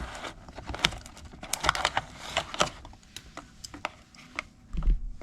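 Irregular clicks and light rustling of cardboard and packaging being handled as the Hobbywing Max6 ESC is taken out of its box, with a dull thump near the end.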